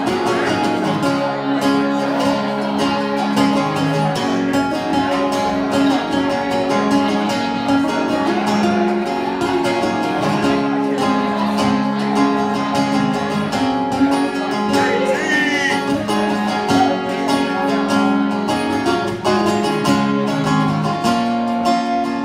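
Acoustic guitar music played live, with steady sustained chords and a voice singing at times.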